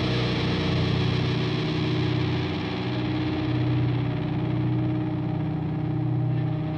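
Metal band music: distorted electric guitar holding long, sustained notes, with no vocals.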